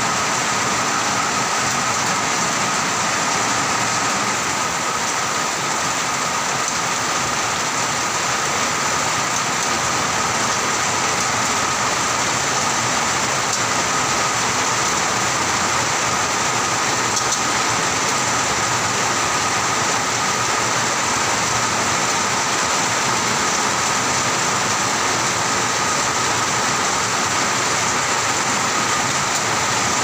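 Heavy rain falling steadily, a dense even hiss with no let-up, with thin steady high-pitched tones running through it.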